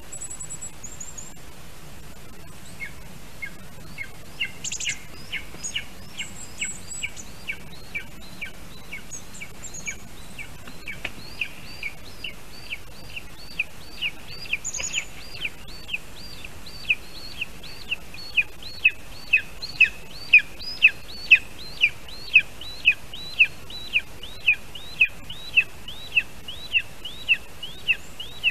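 Lesser spotted eagle calling: a long series of short, high, downward-sliding calls, about two a second, that starts a few seconds in and grows steadily louder. A few faint, higher chirps come in the first half.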